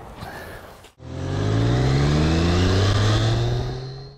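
Motorcycle engine accelerating under way, its pitch rising steadily for about three seconds. It starts suddenly about a second in.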